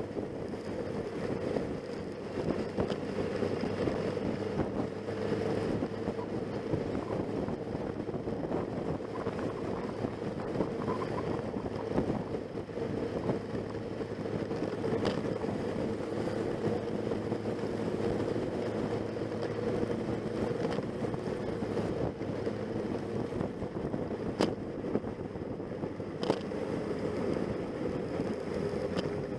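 Motorcycle engine running steadily at cruising speed, heard from a bike-mounted camera with wind rushing over the microphone; a few brief clicks in the second half.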